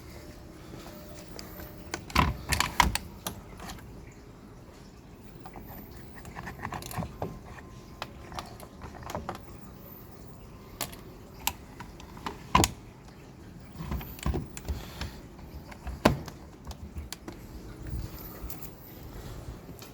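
Irregular handling noises: scattered clicks, knocks and rattles, with a few sharp knocks louder than the rest, about two and three seconds in, near the middle and towards the end.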